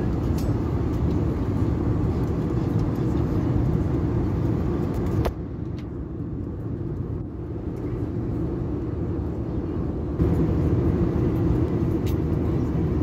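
Steady cabin noise of an Airbus A321 airliner in flight, the engines and airflow making a dense, low rushing sound. About five seconds in a click is followed by a duller, quieter stretch of about five seconds before the full noise returns.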